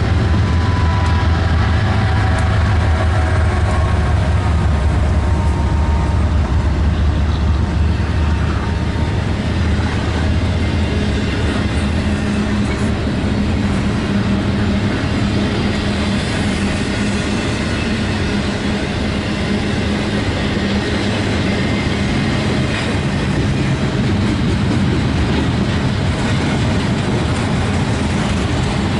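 Train passing close by: a steady, loud rumble of wheels on the rails.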